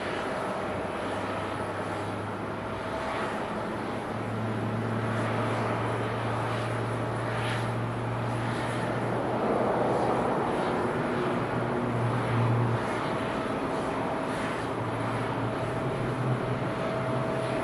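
Jet airliner engines running: a steady drone with a low hum, getting a little louder about ten seconds in.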